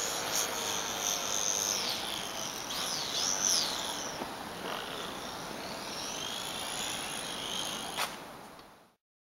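Distant radio-controlled model plane flying overhead, its motor a faint whine that rises and falls in pitch over outdoor background noise. A sharp click comes about eight seconds in, then the sound fades out.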